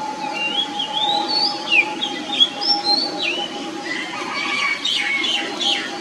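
Oriental magpie-robin singing: a run of clear whistled notes gliding up and down, then quicker, busier notes over the last two seconds.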